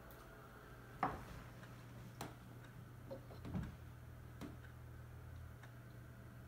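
Twin-bell alarm clock ticking, with sharp ticks roughly once a second and the loudest about a second in, over a low steady hum.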